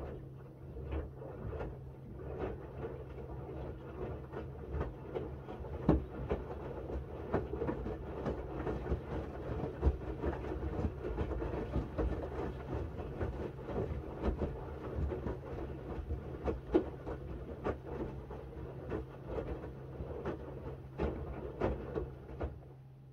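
Miele W1 front-loading washing machine tumbling its drum during the wash. Its motor gives a steady low hum, with irregular knocks and splashes from wet laundry falling in the drum. The tumbling stops abruptly near the end.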